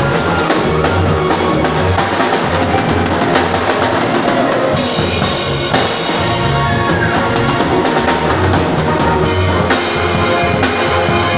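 Music with a drum kit playing a steady groove, kick and snare hits over pitched bass and other instrument notes.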